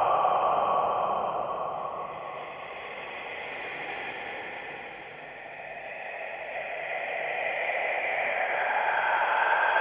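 Scary whispered breathing sound effect: a long, breathy hiss that fades over the first few seconds and slowly swells back up toward the end.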